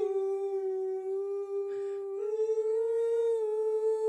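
A single voice holds one long wordless sung note, stepping up a little about two seconds in. It is a voice recording played back through a phone's speaker.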